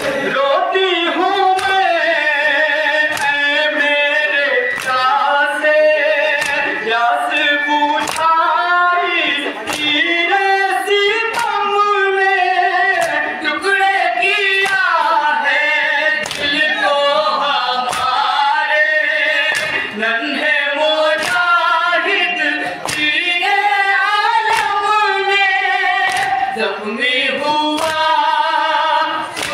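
Noha, a Shia mourning lament in Urdu, sung without instruments by male reciters into a microphone with a group singing along. Sharp chest-beating strikes (matam) keep an even beat about once a second.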